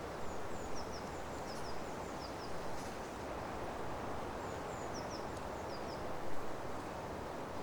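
Forest ambience: a steady rushing noise with a small bird's short, high, falling chirps coming in quick clusters several times, about a second in, around three seconds in and between five and six seconds in.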